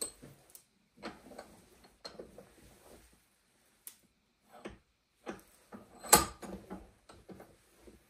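Bench vise being worked by its handle: irregular metal clicks, rattles and short knocks as the handle bar is turned and slides, with the loudest knock about six seconds in.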